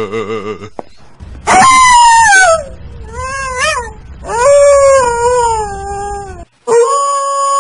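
Canine howling, loud: a falling howl about a second and a half in, a short wavering howl, a longer one, then a long steady howl near the end, over a low rumble.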